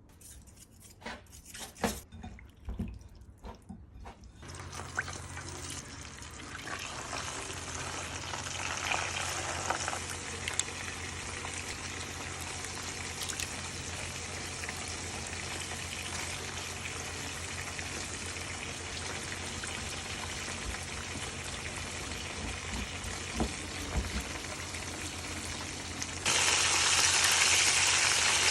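A few light clinks of kitchenware, then a steady hiss with a low hum. Near the end a sudden, much louder sizzle starts, as of food going into hot oil in a pan.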